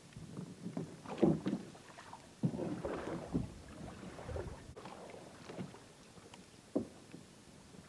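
Canoe being paddled: irregular paddle splashes with knocks against the hull, the loudest knock about a second in and a longer splashy stretch a little later.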